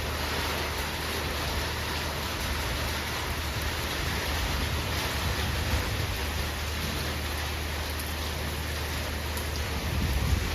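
Heavy cyclone rain falling steadily, an even rushing hiss with a steady low rumble beneath it.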